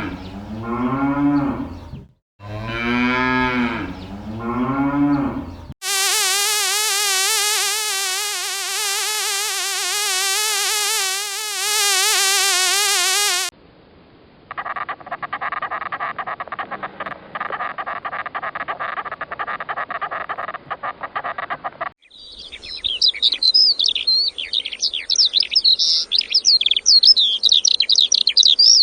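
Cattle mooing twice, followed by a long wavering call held for several seconds, then a rapid buzzing drone like an insect, and finally a burst of high, fast bird-like chirping.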